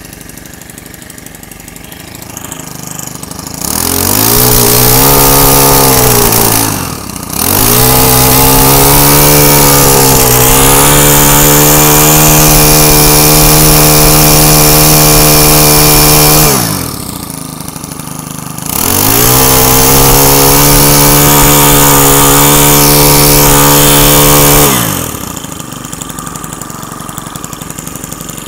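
Makita EM2650UH four-stroke brush cutter engine idling after being pull-started, then revved hard to full throttle three times and held for several seconds each time, dropping back to idle between runs. The throttle response is sharp, as a healthy engine's is.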